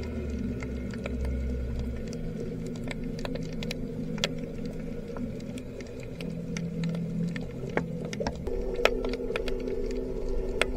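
Underwater reef ambience: scattered sharp clicks and crackles over a steady low hum, with the hum deepening about two-thirds of the way in.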